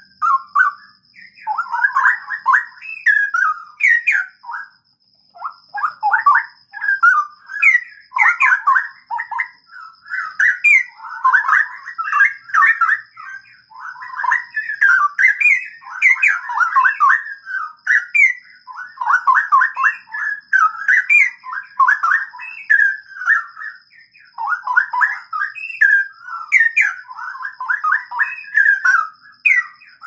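Straw-headed bulbul singing: loud, rapid warbled phrases that run almost without pause, with short breaks every few seconds.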